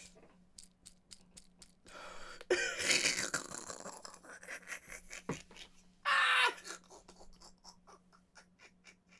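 A man laughing hard and almost silently: wheezing, breathless laughter in short puffs, with gasps and two louder breathy bursts, about two and a half seconds in and about six seconds in.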